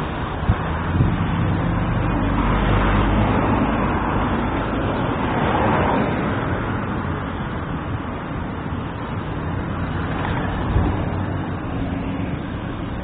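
Road traffic noise: a vehicle engine running close by with a low steady hum under a wash of passing traffic, louder in the first half and easing off later.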